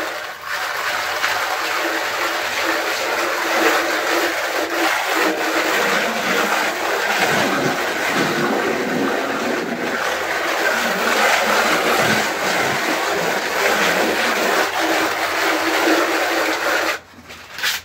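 Plasterer's hand floats rubbing grainy rendering (Reibeputz) on a wall: a continuous gritty scraping over a steady hum, cutting off suddenly near the end.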